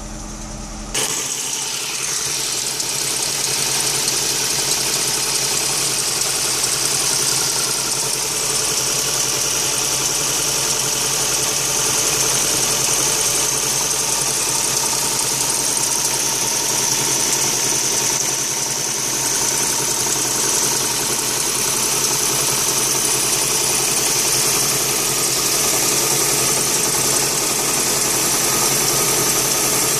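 2001 Ford Fiesta Mk5's 1.25 Zetec four-cylinder petrol engine idling roughly, a misfire caused by no compression in cylinder 2 and very little in the others. About a second in the sound abruptly gets louder, then runs on steadily.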